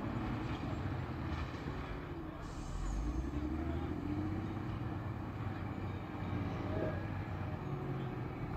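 A heavy engine running steadily, with a brief low surge about three seconds in.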